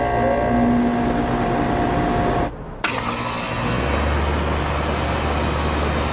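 HVAC equipment starting up and running, a steady mechanical hum with whirring and hiss. It breaks off abruptly about two and a half seconds in, and a second unit comes on; a deep low hum joins about four seconds in.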